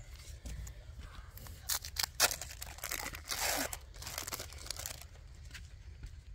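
Crinkling and tearing, as of packaging being handled: a run of irregular crackles and rustles, loudest in two clusters, about two seconds in and again a little past the middle.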